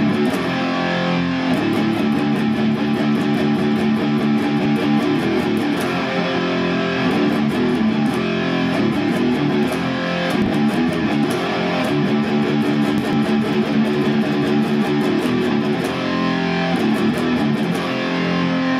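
Intro music led by electric guitar, with a steady beat.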